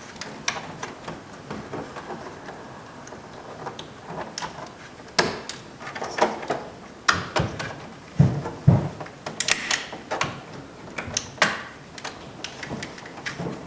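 Clicks and knocks from door trim pieces and electrical connectors being handled, plugged back in and snapped into place on a pickup's door, with two heavier thumps about eight seconds in.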